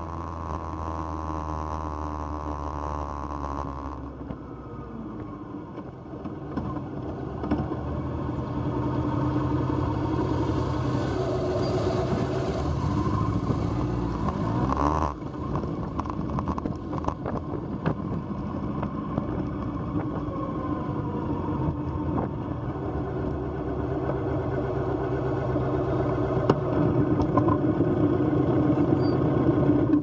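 Motorcycle engines close by, a Honda CB750 and a VT250. For the first few seconds they run at a steady cruising note, then the pitch drops as the bikes slow down. After that they run at low speed with the revs rising and falling.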